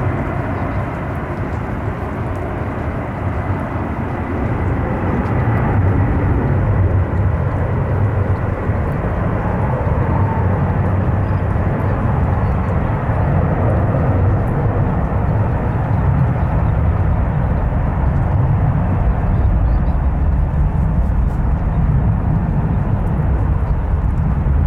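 Jet airliner engines running: a steady, loud, deep rumble that swells about five seconds in and stays strong.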